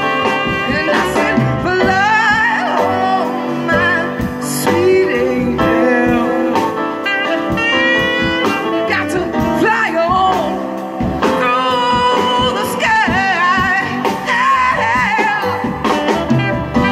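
Live jazz-blues band music: piano and accompaniment under a melody line carried with heavy vibrato.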